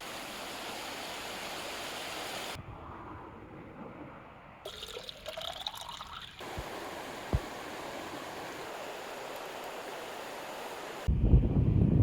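Mountain stream running, a steady rush of water, broken by edits to quieter sounds for a few seconds near a third of the way in. Two short thumps follow, and a loud low rumble begins near the end.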